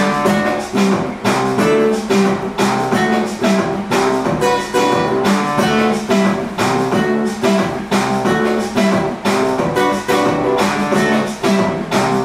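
Acoustic-electric guitar strumming chords in a steady, repeating rhythm, about two to three strokes a second.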